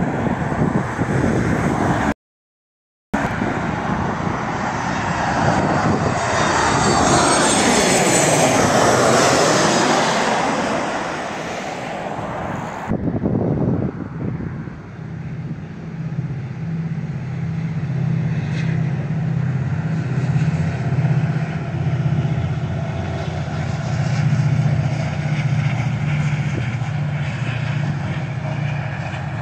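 Airplane flying low overhead, its engine sound growing to a peak with sweeping pitch as it passes, with a brief dropout a couple of seconds in. After a sudden cut about halfway through, a steadier low engine hum with a slight pulse continues.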